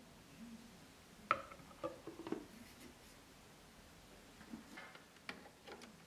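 Light plastic knocks and clicks from handling an essential-oil diffuser on a countertop. The loudest knock, with a short ring, comes about a second in, followed by a few more, then quieter clicks near the end as its power adapter is pushed into a wall socket.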